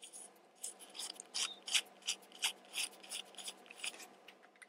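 Short, rhythmic scraping and rubbing strokes, about three a second, as the parts of an airsoft pistol are worked by hand while a magwell insert is fitted to the frame.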